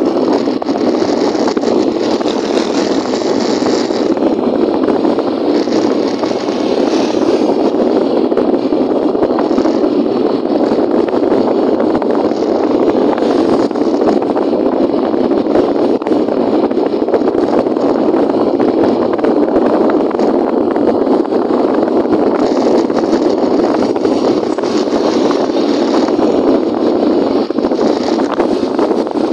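Motorcycle riding at road speed: a steady, dense rush of engine and wind noise.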